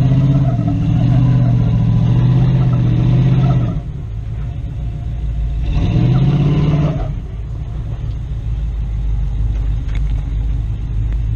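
Pickup truck engine working under load as the truck crawls up a rock ledge: a steady, strong drone for the first few seconds, then it eases off, revs up again with a rising pitch about six seconds in, and settles to a low rumble.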